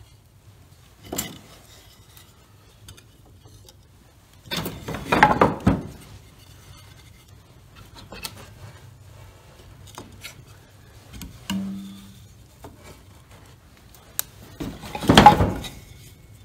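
Dry sawn wood pieces being laid onto a small fire in a wood stove's firebox: wood clattering and scraping against wood and the stove, with louder knocks about a second in, around five seconds and near the end.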